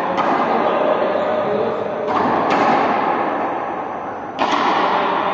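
Indistinct overlapping voices of a group, with four sharp thuds, two of them close together about two seconds in and one near the end.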